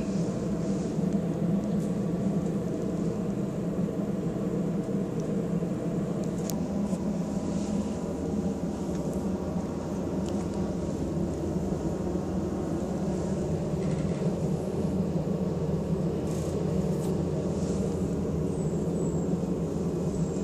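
Steady low mechanical rumble and hum, unchanging throughout, with a couple of faint clicks.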